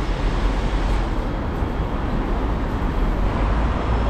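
Steady city street traffic noise: a continuous hum of passing road vehicles with a low rumble.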